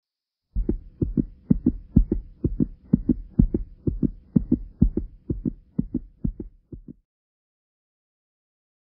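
Heartbeat sound effect: low thumps in lub-dub pairs, about two beats a second, stopping abruptly about seven seconds in.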